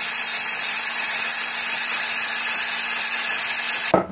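Electric hand blender whisking egg whites in a glass vase, running steadily as the whites stiffen to peaks for meringue. The motor cuts off suddenly near the end, followed by a knock.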